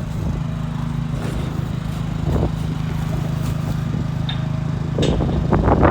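Small Honda gasoline engine that drives a portable cattle chute's hydraulic pump, running steadily at part throttle. About five seconds in, a burst of knocking and clattering starts over it.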